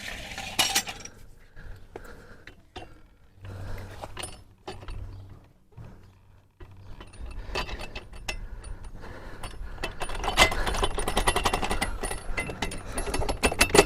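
Metal motorcycle parts clinking and rattling as a Honda Grom's rear wheel, chain and axle are worked into place. Scattered clicks and knocks come first, then a dense, rapid rattle from about halfway through.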